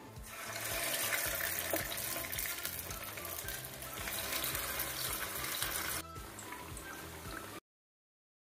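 Marinated chicken pieces sizzling and spitting as they go into hot coconut oil in a frying pan, over soft background music. The sizzle builds about half a second in, eases about six seconds in, and then all sound cuts off abruptly shortly before the end.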